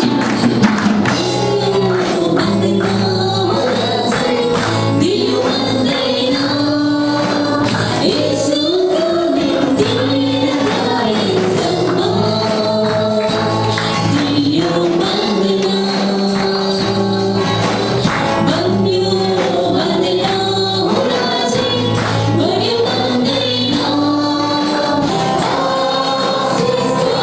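Live Christian worship song in Nepali: several singers with microphones sing the melody together over a band of guitars and drums keeping a steady beat.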